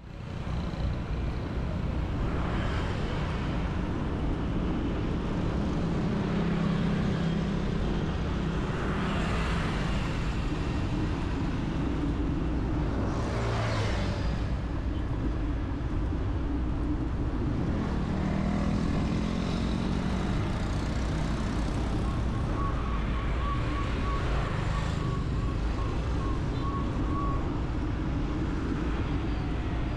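City street traffic heard from a bicycle: a steady low road rumble with several vehicles passing by, the loudest about thirteen seconds in.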